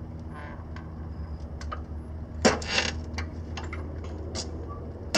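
Retractable ratcheting tie-down strap being released by hand: scattered small clicks and rattles of the ratchet mechanism, with a louder short burst about two and a half seconds in as the strap lets loose. A steady low hum sits underneath.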